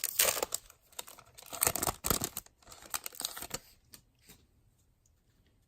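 Foil wrapper of a trading card pack being torn open and crinkled, with cards being handled; the crackling rustle stops a little past halfway, leaving a few faint clicks.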